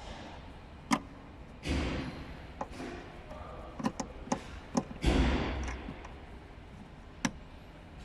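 Sharp plastic clicks and knocks with two longer rustling scrapes, from a Skoda Rapid's boot carpet being pulled back and its plastic hooks being handled.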